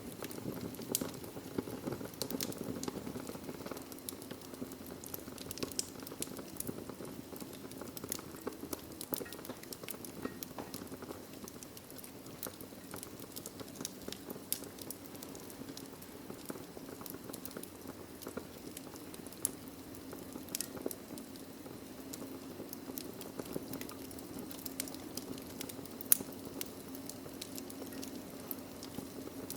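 Burning logs in a fireplace crackling: frequent small snaps and pops over a low, steady rush of flame. One sharper, louder pop comes near the end.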